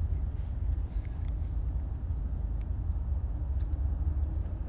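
Low, steady rumble of a moving car heard from inside the cabin: road and engine noise picked up by a phone's microphone.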